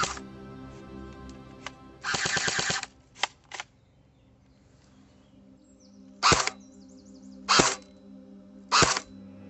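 Snow Wolf M41A Pulse Rifle airsoft electric gun firing over background music. About two seconds in comes a short full-auto burst, then two quick single shots, and after a pause single shots about every second and a quarter. Each shot carries a very pronounced spring noise.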